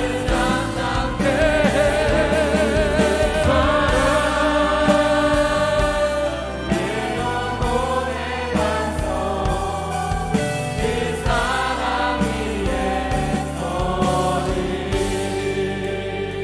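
Church worship team singing a Korean praise song into microphones, several voices together over steady instrumental accompaniment.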